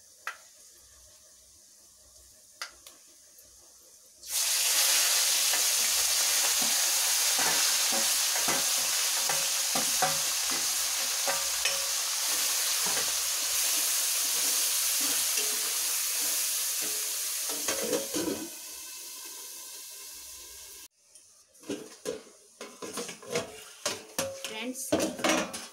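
Cooked amaranth (cholai) greens tipped into hot mustard-oil tadka in a steel kadhai. About four seconds in comes a sudden loud sizzle that holds for over ten seconds and then dies down. Near the end a spoon scrapes and clinks against the pan as the greens are stirred.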